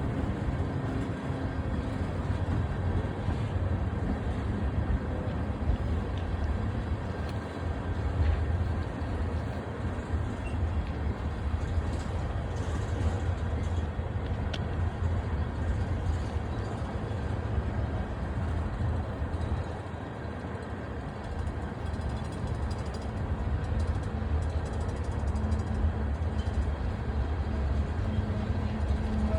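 BNSF freight train rolling past: a steady, low rumble of wheels on rail, with a faint engine hum near the start and again near the end.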